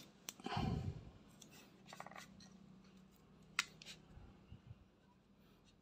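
Faint handling sounds from labelling a tool: a few light clicks and short scratches of a felt-tip marker writing on a strip of paper tape stuck to its plastic housing.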